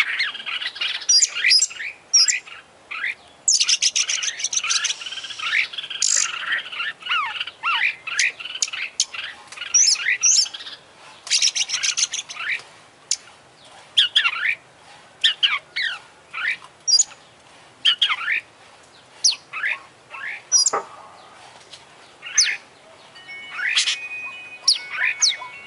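Oriental magpie-robin (kacer) in full song: a dense, fast run of varied whistles, chirps and trills for about the first twelve seconds, then separate sharp whistled notes with short pauses between them.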